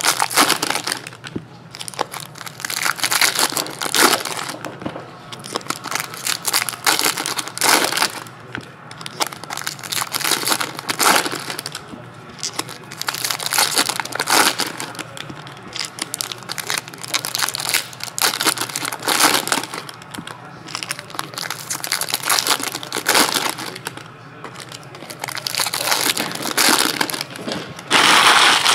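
Foil trading-card pack wrappers crinkling and rustling as they are torn open and handled, in repeated bursts, with a longer, louder crinkle near the end.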